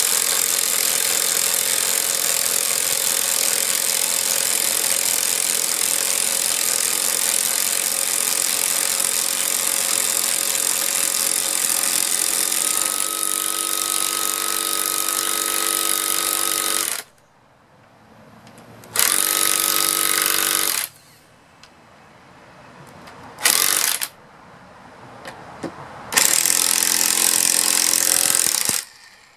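Two Mastercraft corded electric impact wrenches hammering together as they drive 1/2-inch lag bolts into wood, a steady rattling impact noise over the whine of their motors. They stop about 17 seconds in; one wrench then hammers in three more short bursts as its bolt is run down and seated.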